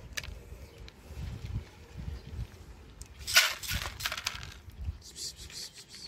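Dry cat kibble poured from a plastic scoop into a plastic tray, a short loud rattle of pellets about three seconds in, followed by fainter clicking of pellets.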